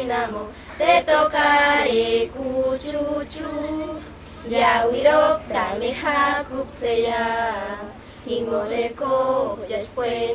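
A group of schoolgirls singing together in unison, in phrases with short breaks about four and eight seconds in.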